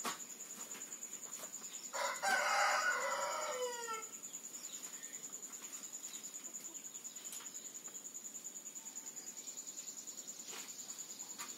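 A rooster crowing once about two seconds in: a single call of about two seconds whose pitch drops at the end. A thin, steady high-pitched tone runs underneath.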